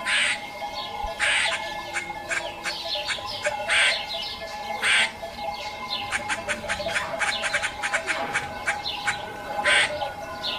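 A flock of griffon vultures squabbling over a carcass: several loud, harsh hissing squawks, with runs of rapid clicking chatter in between.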